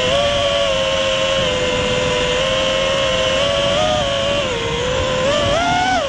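Brushless motors and Ethix Watermelon props of a 6-cell FPV racing quad whining at a steady pitch, then rising and falling with throttle as it maneuvers, climbing sharply just before the end. Airflow rushes over the onboard GoPro's microphone underneath.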